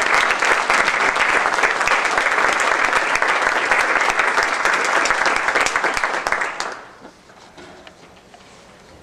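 Audience applauding, the clapping dying away about seven seconds in and leaving a quiet hall with a few faint small noises.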